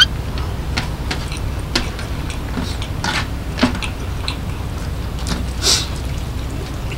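Eating by hand: scattered wet mouth clicks and smacks of chewing rice and egg with chili soy sauce, mixed with fingers picking food from a stainless steel tray, the loudest a brief hissy smack near the end. A steady low hum runs underneath.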